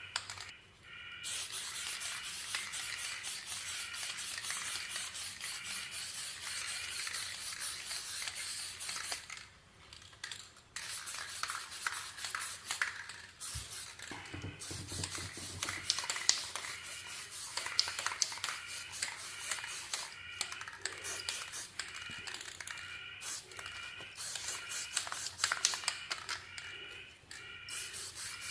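Aerosol spray paint can spraying in long hissing passes, broken by short pauses.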